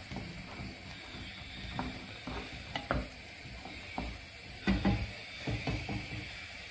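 Wooden spoon stirring lime peels in sugar syrup in a metal saucepan, knocking and scraping irregularly against the pan, over a steady faint hiss of the simmering syrup.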